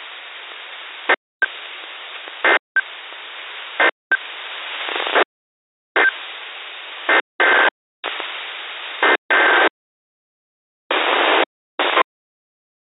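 Weather radio receiver static: a steady hiss that keeps cutting in and out to dead silence about ten times, the stretches growing shorter and the gaps longer toward the end, with a faint brief tone at some of the breaks.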